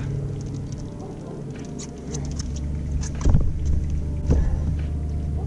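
A few sharp knocks and thumps as a large northern pike is handled on a measuring board on a boat's deck, over a steady low hum.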